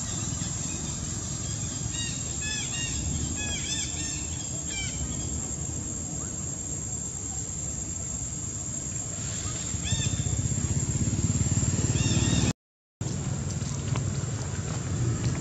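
Steady low outdoor rumble with several quick runs of short, high, rising-and-falling animal chirps, the longest run a few seconds in. The sound cuts out briefly near the end.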